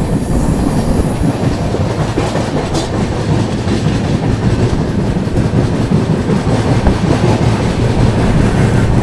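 Andhra Pradesh Sampark Kranti Express passenger train running at speed: a steady, loud rumble and rattle of the coach and its wheels on the track.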